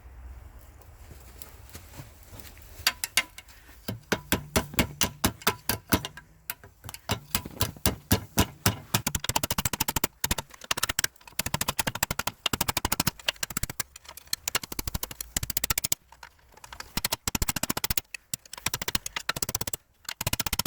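Hammer striking iron in sharp blows, a few a second at first from about three seconds in, then in quick rapid runs with short pauses.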